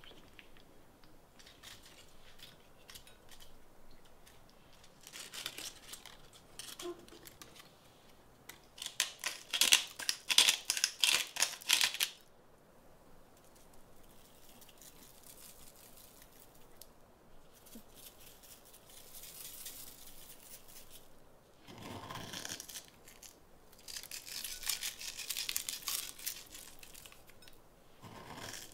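Hands tearing and handling Scotch bonnet peppers on a wooden chopping board. A loud run of rapid crisp crackles comes about nine to twelve seconds in, and near the end there are shorter bursts of rustling as the ingredients are handled in a bowl.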